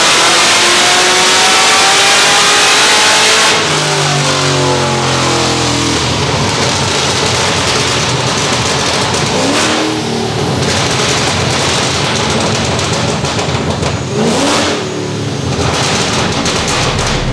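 The HSV Clubsport wagon's modified V8 is at full throttle, its pitch climbing. About three and a half seconds in, the throttle comes off and the revs fall away. It keeps running roughly, with two brief rises in revs later on.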